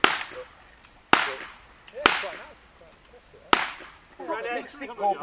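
Four gunshots from a shoulder-fired long gun at uneven intervals over about three and a half seconds, each a sharp crack with a short echoing tail. A man's voice follows near the end.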